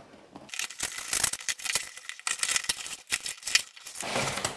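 Knife slitting the packing tape on a cardboard shipping box: a dense run of quick crackling rips, then the cardboard flaps being pulled open near the end.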